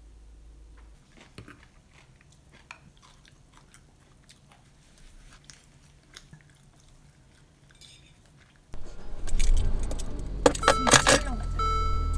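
Faint clinks of cutlery and dishes at a dinner table. Then, about nine seconds in, the sound jumps to a car cabin: a low rumble and a burst of keys jangling, followed near the end by the Mercedes-Benz dashboard's repeating warning chime.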